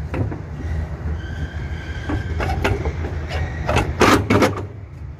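Replacement vacuum brake booster being pushed and worked into its mounting on the firewall: several sharp metal knocks and a faint squeaking scrape, over a steady low hum.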